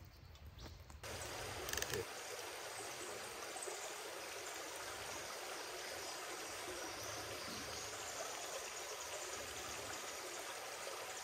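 Shallow creek water flowing steadily over sand and rocks, starting about a second in. A brief knock sounds about two seconds in.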